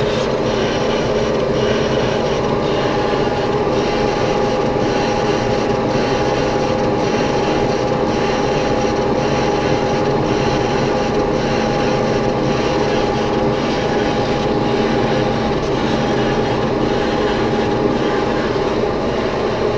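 Machine tool running steadily as a long boring tool cuts the inner bore of a vacuum compressor housing, with an even whine from the machine over the noise of the cut.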